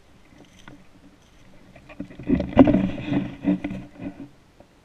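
Footsteps crunching through dry fallen leaves, with a loud stretch of rustling and scraping lasting about two seconds in the middle.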